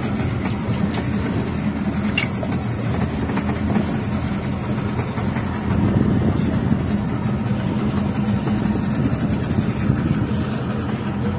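Fishing boat's engine running steadily: a low, even hum with a constant hiss above it.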